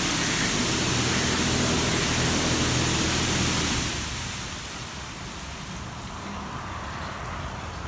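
Oasis Typhoon touchless car wash blasting high-pressure water spray over a car, a loud steady hiss over a low pump hum. About four seconds in, the spray falls away to a softer hiss of water.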